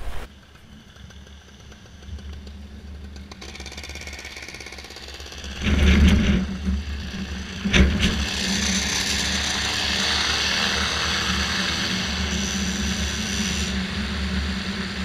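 Vittorazi Moster 185 single-cylinder two-stroke paramotor engine, faint at first and then loud and steady at full launch power from about six seconds in, with wind rush over the microphone. A sharp thump comes about eight seconds in.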